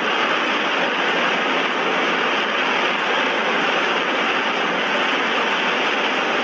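Steady rush of wind and road noise over the microphone on a Kawasaki Ninja 300 motorcycle ridden near its top speed, about 170 km/h.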